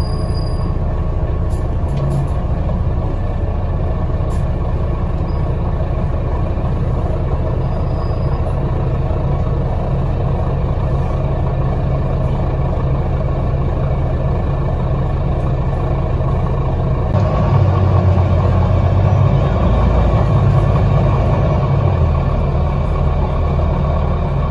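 Bus engine and running gear heard from inside the passenger saloon while the bus moves along: a steady low rumble that grows louder about two-thirds of the way through as the engine pulls harder.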